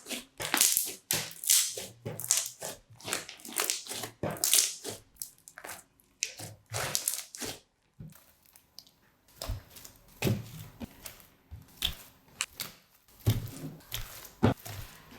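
Crunchy slime packed with small beads being squeezed and pressed by hand, crackling and popping in quick repeated bursts. About halfway through it turns quieter, with only scattered soft thuds and clicks.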